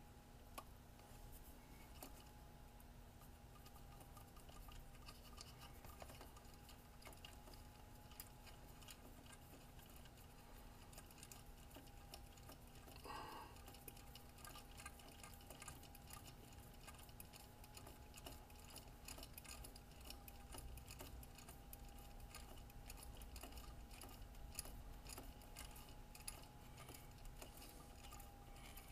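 Near silence with faint, scattered small clicks of a screwdriver turning a screw into the bumper mount of a scale RC crawler chassis, over a faint steady hum.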